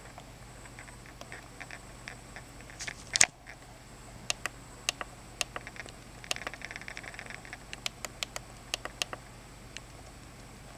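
Control-panel buttons on a Neato XV-21 robot vacuum clicking as they are pressed: one louder knock about three seconds in, then a run of a dozen or so short, sharp clicks over the next five seconds. A low steady hum runs underneath.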